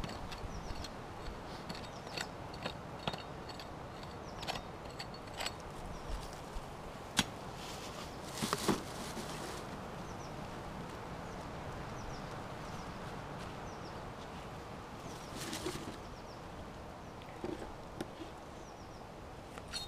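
Hands and a scoop scraping and scooping dry dirt and gravel in a small dug hole, with scattered clicks of small stones, a sharp knock about seven seconds in, and short scraping rushes of loose soil around eight seconds and again near fifteen.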